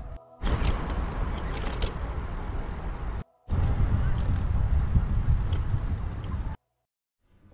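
Outdoor road noise, a steady rumble typical of traffic, in two clips of about three seconds each that each cut off abruptly into brief silence.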